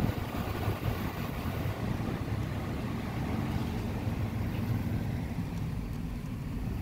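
Car driving across a paved lot, heard from inside the cabin: a steady low engine and road rumble.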